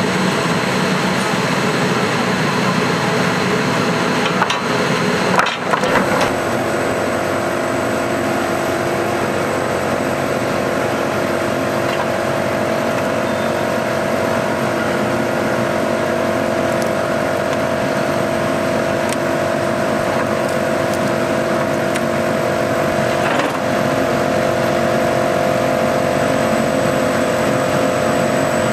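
MS Maschinenbau sawmill line running: the motors, conveyors and circular saw blades give a loud, steady mechanical hum with a constant tone. The sound changes about five seconds in with a few knocks, and there is one more brief knock near the end.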